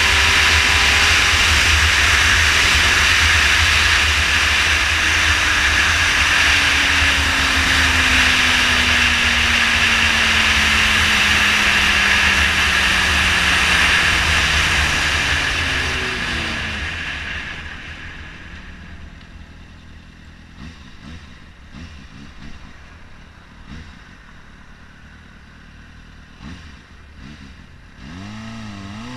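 Loud wind noise over a motorcycle-mounted camera at road speed, with the motorcycle's engine note falling steadily in pitch as it slows. After about 17 seconds the wind dies away as the bike slows right down, leaving a quiet engine at low revs that starts to pick up near the end.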